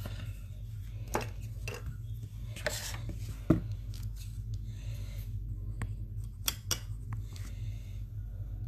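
Light scrapes, rubs and clicks of a makeup brush being swirled and tapped in a powder blush palette, with one sharper tap midway, over a steady low hum.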